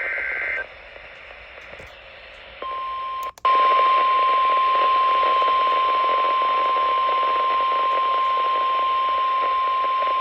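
Emergency Alert System alert over a weather-radio receiver with static. The tail of a warbling SAME digital data burst ends half a second in, then a couple of seconds of static. Then a long, loud single-pitch attention tone starts, drops out for an instant, and holds steady.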